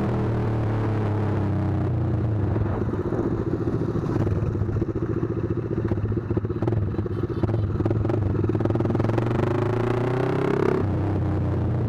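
Z200S motorcycle exhaust through an SC Project aftermarket muffler on a 51 mm elbow pipe, running at steady low revs while riding. The note goes choppy and uneven for several seconds in the middle, then steadies and rises in pitch near the end.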